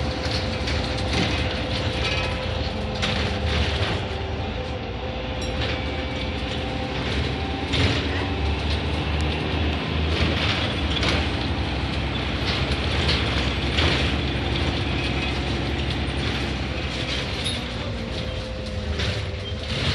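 Cabin noise inside a moving service bus: the engine and drivetrain run with a low rumble and a steady hum, while the body and fittings rattle and knock.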